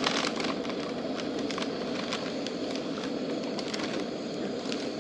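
Food frying in a pan over a campfire: a steady sizzle with frequent small spits and pops.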